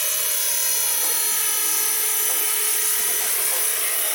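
Radio-controlled Jet Ranger scale helicopter running with a steady, high-pitched whine from its motor and rotors.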